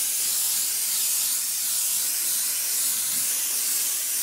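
Airbrush spraying gray base-coat paint, a steady hiss of air and paint from a fine jet.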